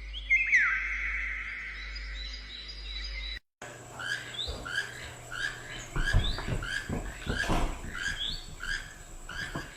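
A bird calling with short, high, rising chirps repeated about twice a second. It comes in after a brief cut; before the cut there is a held tone that glides down, and a few low thumps sound midway through the calls.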